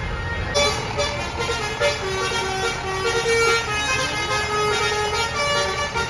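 A bus's Basuri telolet horn, a set of several horn trumpets, plays a tune of held notes that step up and down, starting about half a second in.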